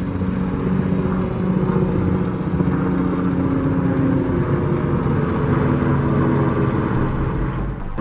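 A motor vehicle engine running with a steady low hum whose pitch drifts slowly, over a noisy background.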